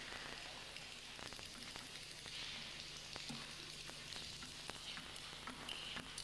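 Faint hiss of the hall's background noise with a steady low hum, and a few faint clicks of a table tennis ball, including a serve and the first strokes of a rally near the end.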